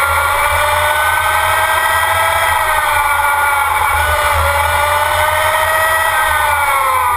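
Formula Student race car running at speed, its drivetrain whine climbing and dipping in pitch as it speeds up and slows through the bends, and falling near the end, over steady wind and road rumble at the onboard camera.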